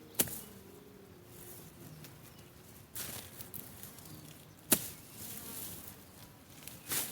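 Weeds and grass being cut by hand with a blade: about four sharp swishing cuts, a second or more apart.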